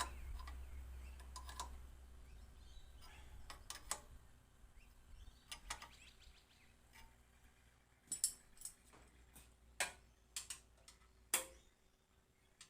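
Faint, scattered metallic clicks and taps of hand tools working on the tractor's fuel injector lines, over a low steady hum that stops near the end.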